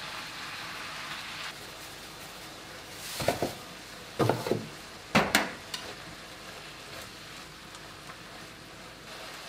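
Ground beef sizzling as it browns in a frying pan on an electric hob. A few sharp clattering knocks come in quick clusters about three to five and a half seconds in.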